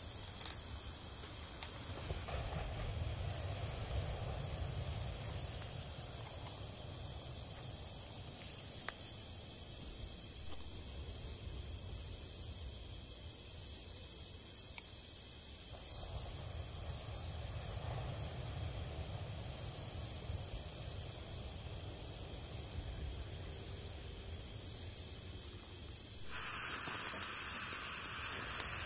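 Steady high-pitched chirring of insects, a continuous pulsing drone. Near the end it gives way to an even hiss as cooking oil is poured into a clay pot.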